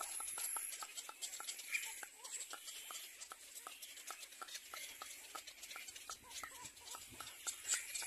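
Little cormorant chicks calling at the nest: a rapid, even ticking of about four to five short clicks a second over a faint high hiss.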